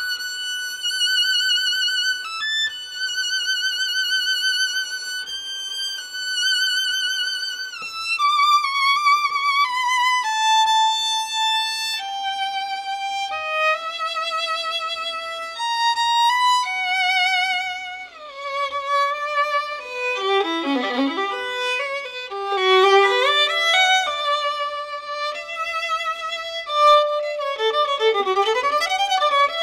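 Solo violin playing a slow melody with vibrato: long held notes stepping down in pitch, then sliding swoops down and up in the second half.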